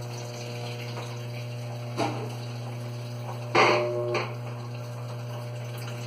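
Electrolux LT15F top-loading washer filling: water runs into the tub as a steady hiss over a steady low hum, with two short louder sounds about two and three and a half seconds in. The machine fills without stopping at the set level because its level hose has slipped off the pressure switch.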